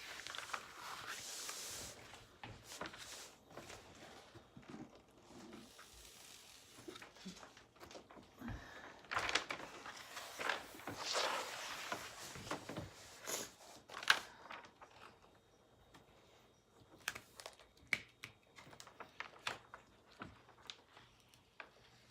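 Paper packaging being handled and pulled apart, rustling and crinkling in irregular spells, with scattered clicks and taps.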